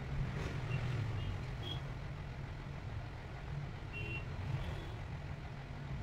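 A steady low background rumble, with a few faint, short high-pitched chirps scattered over it.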